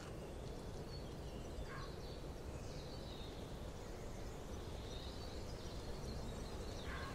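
Forest ambience: a steady hiss with a few faint, short bird calls, one about two seconds in and another near the end.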